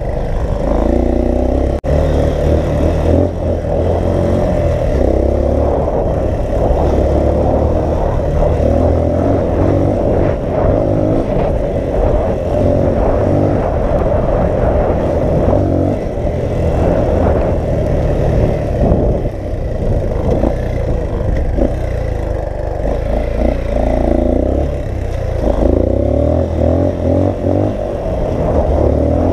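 Dirt bike engine running under way, its revs rising and falling with the throttle, with wind buffeting the microphone.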